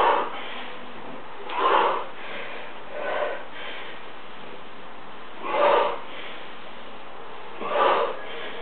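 A man breathing hard from the exertion of repeated barbell lifts: five sharp, noisy exhales, spaced about one and a half to two and a half seconds apart.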